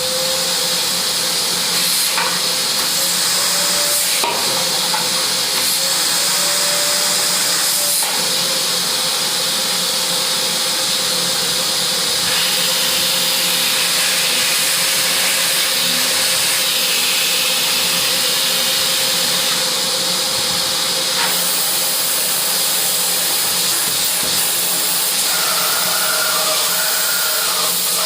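AmazonBasics 21-litre 1400 W wet-and-dry vacuum cleaner running steadily: a loud rush of air with a motor whine held at one pitch that wavers slightly now and then.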